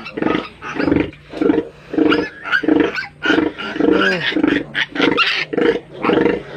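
Pigs grunting and squealing in short calls repeated about twice a second, with a couple of rising-and-falling squeals among them: a sow and her newborn piglets as the piglets are handled.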